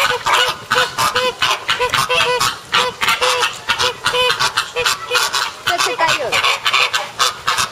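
A flock of flamingos honking in a dense, continuous chorus of short, goose-like calls, several a second and overlapping, as the birds squabble.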